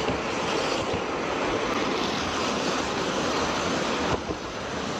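Train running along the rails: a steady rushing rumble of wheels on track, with a brief knock about four seconds in after which the sound drops a little and changes tone.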